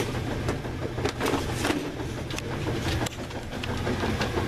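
A steady low mechanical hum with scattered irregular clicks and knocks over it.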